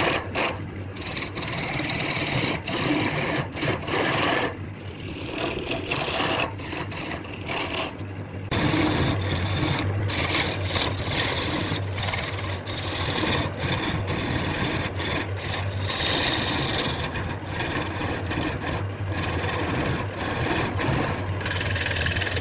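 Wood lathe running with a steady low motor hum while a tool or abrasive rasps against the spinning wood. The scraping noise breaks off briefly a few times, and the hum is a little stronger from about eight seconds in.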